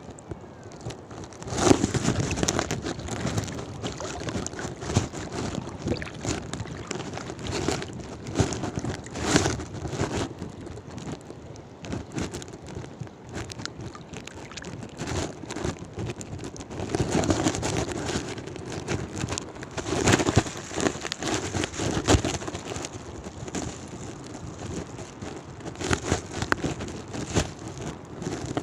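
Gusty wind rumbling on the microphone, rising and falling in swells, with irregular crackles and knocks.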